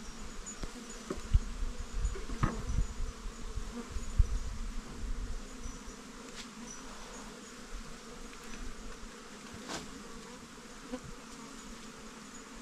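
A crowd of insects buzzing steadily, with several low knocks and bumps in the first few seconds.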